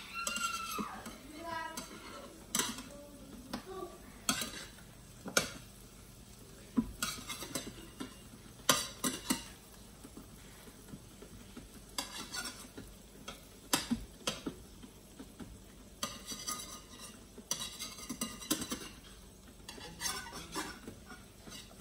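Metal utensils clinking and scraping against a frying pan in irregular taps as zucchini slices are turned one by one, with the slices sizzling in the pan.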